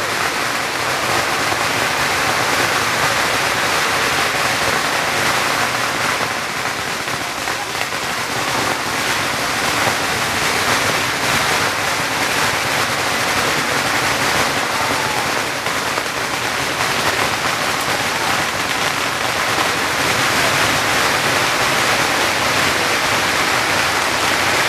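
A long string of firecrackers going off in a dense, unbroken crackle of rapid pops.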